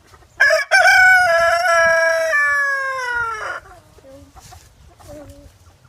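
Rooster crowing once: a loud, drawn-out cock-a-doodle-doo of about three seconds, with a brief catch near its start and a falling pitch at the end. A few faint short calls follow.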